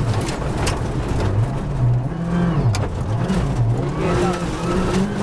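Ford Fiesta R5 rally car's turbocharged four-cylinder engine heard from inside the cockpit, its pitch dropping in a series of steps as the driver brakes hard and downshifts from high speed into a slow corner, then rising again near the end as the car accelerates out. A couple of sharp cracks sound over it.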